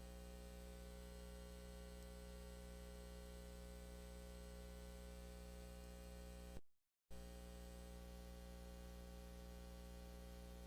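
Near silence: a steady low electrical hum with faint hiss, broken by a brief total dropout about six and a half seconds in.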